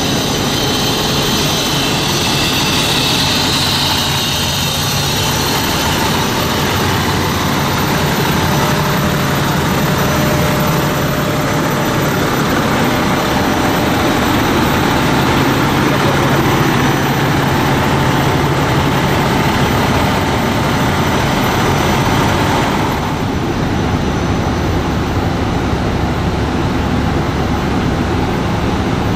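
Diesel engines of Pierce fire trucks running close by: a steady low drone with a constant whine over it. The sound drops in the upper range abruptly about 23 seconds in.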